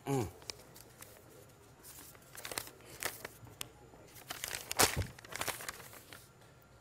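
A sheet of paper being unfolded close to a microphone, crinkling and crackling in irregular bursts, loudest about five seconds in. A brief falling voice sound comes at the very start.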